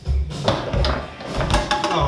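Background music with a steady bass beat, over sharp clacks of a foosball ball and rods during play on a Tornado table.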